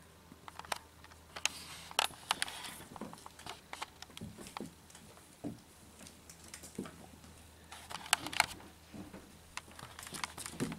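Two kittens play-fighting on a hardwood floor: irregular light taps, scuffles and claw clicks, bunched about two seconds in and again near the end.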